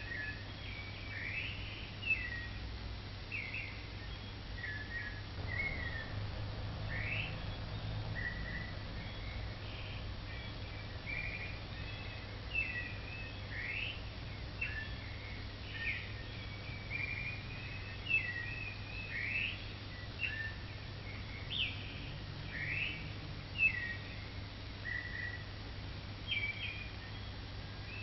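Birds chirping, many short quick calls sweeping up and down in pitch, over a low steady hum.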